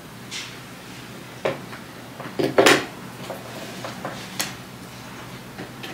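Household handling noises as a lamp is set up and plugged in: scattered clicks and knocks, with a loud clatter about two and a half seconds in. A steady low hum runs underneath.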